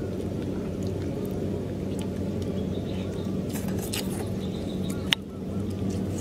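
Cooked snail shells clicking faintly as they are handled and picked at, with one sharp click about five seconds in, over a steady low hum.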